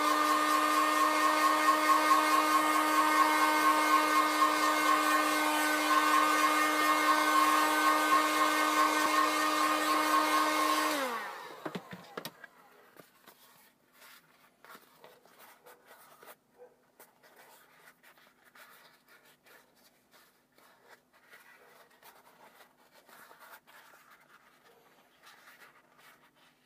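Heat gun running with a steady motor whine and rushing air, blowing on EVA foam; about eleven seconds in it is switched off and its pitch falls as it winds down. Then faint handling sounds of the warmed foam being bent by hand.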